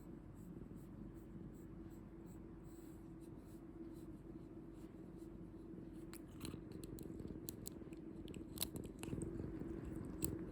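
A pet brush rubbing through a cat's fur in soft, scratchy strokes, growing busier about halfway through, with a couple of sharp clicks near the end, over a steady low hum.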